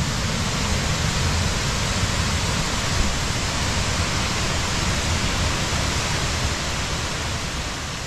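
A waterfall in full rainy-season flow, heard as a steady, even rushing.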